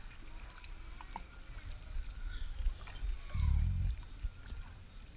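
Kayak paddling: the paddle dipping and water moving against the hull over a steady low rumble, with one louder low thud lasting about half a second about three and a half seconds in. Faint distant voices are underneath.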